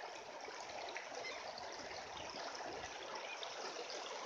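Shallow creek running steadily over a gravel bed, a constant even rush of water.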